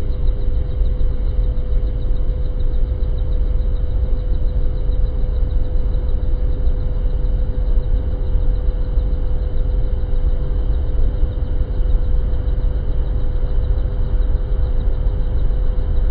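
Helicopter in flight heard from inside the cabin: a loud, steady low rumble of rotor and engine with a constant hum above it.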